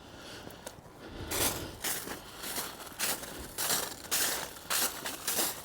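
Footsteps crunching on frozen-solid mud, starting about a second in and going on at a steady walking pace of about two crisp crunches a second.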